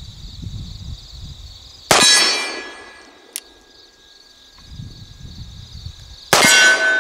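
Two shots from a Colt Second Model Richards cartridge conversion revolver firing black-powder .44 Colt, about four and a half seconds apart. Each shot is followed by a steel target ringing as it is hit. Crickets chirp steadily in the background.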